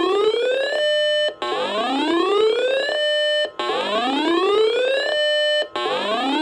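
Electronic whooping alarm: a rising tone that sweeps up for about a second and a half, holds steady for half a second, breaks off and starts again. It repeats about every two seconds, three full cycles and the start of a fourth.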